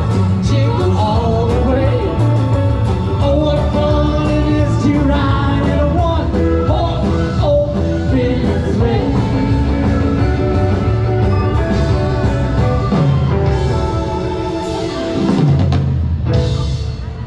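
Live rock band playing a song with a lead singer, amplified through a PA, with a steady beat; the music drops away near the end.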